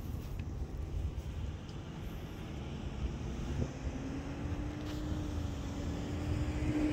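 Low rumble of a passing vehicle, with a steady droning hum coming in about halfway through.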